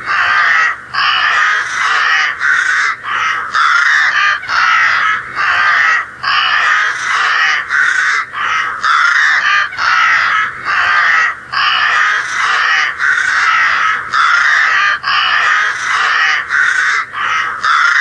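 A flock of crows cawing, one caw after another, with only brief breaks all the way through.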